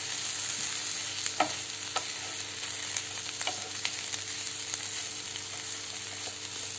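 Sliced onion, grated dry coconut and tomato sizzling in oil in a nonstick frying pan while a wooden spatula stirs them, with a few light taps and scrapes of the spatula against the pan.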